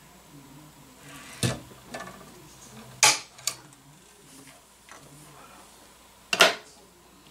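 Metal hand tools and parts clinking and knocking as they are picked up and set down on a workbench: four or five sharp clacks, the loudest about three seconds in and again near the end.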